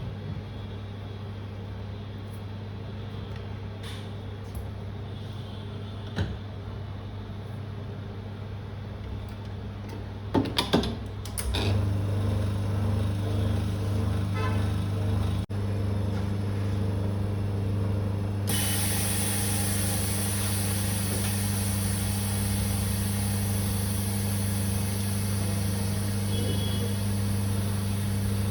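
Steady electrical hum from bench equipment. A few clicks come about ten seconds in, then the hum grows louder, and a steady hiss joins it about two-thirds of the way through.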